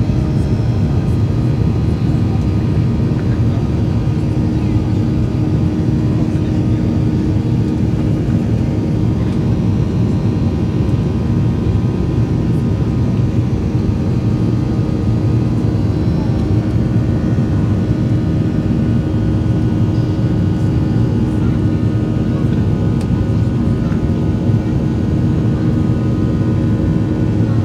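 Jet engine and airflow noise of a Boeing 737-900ER, heard from inside the cabin: a steady, unchanging drone with several held tones above it.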